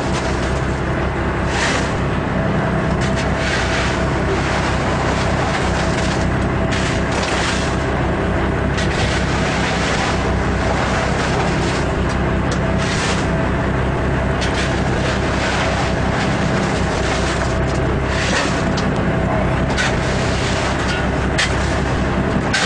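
Fishing boat's engine running steadily, a constant low hum, with wind and wave noise over it in brief gusts.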